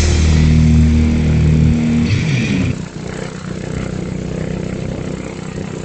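Longtail boat engine running, loud and steady, then dropping to a quieter steady run a little under three seconds in.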